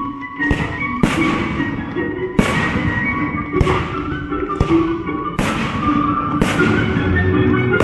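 Fireworks going off: about seven sharp bangs a second or so apart, each followed by a rolling echo, over classical music playing for the pyromusical show.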